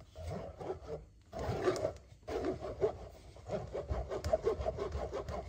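Metal spoon scraping and pressing blended pineapple, onion and ginger pulp through a mesh strainer, in repeated scraping strokes with a short pause about two seconds in.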